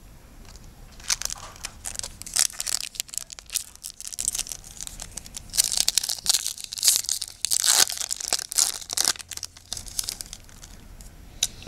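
Foil Yu-Gi-Oh booster pack being torn open and crinkled in the hand, a long run of irregular crackling rips, with the wrapper rustling as the cards are pulled out.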